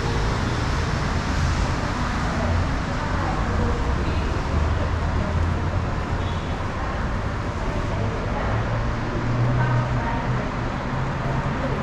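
Steady hum of a Daegu Metro Line 3 rubber-tyred monorail train and road traffic, with a low drone that grows stronger about eight seconds in.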